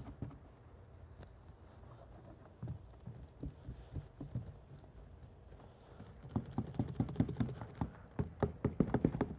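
Hand seam roller rolled hard over a self-adhering EPDM corner flashing, pressing its pressure-sensitive tape down. It makes a run of irregular light clicks and taps that grows busier in the second half.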